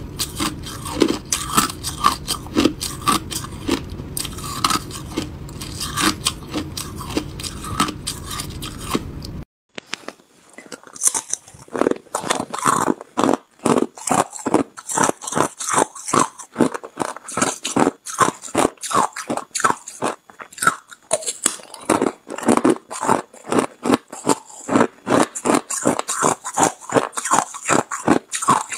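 Hard ice being bitten and chewed close to the microphone: rapid, crisp crunches one after another. Crushed ice at first; after a short break about a third of the way through, bites from a solid stick of ice, with crunches coming two or three a second.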